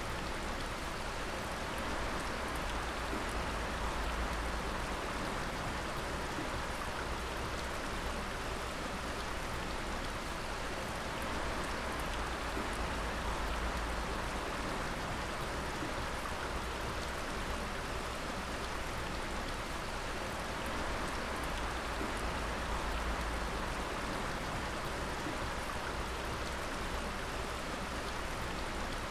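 Water dripping and splashing in a steady patter, with a constant rushing wash of running water behind it.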